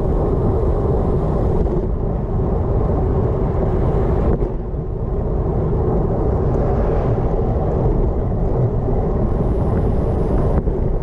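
Steady wind rush and road rumble on a bike-mounted GoPro while riding a road bike along asphalt at speed.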